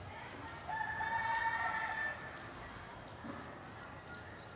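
A rooster crowing once, one long call starting under a second in and lasting about a second and a half, followed near the end by a few short, high bird chirps.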